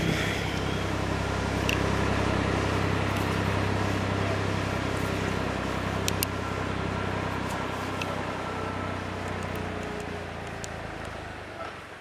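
Massey Ferguson 231 tractor's diesel engine running steadily, fading away near the end. A few faint clicks come about halfway through.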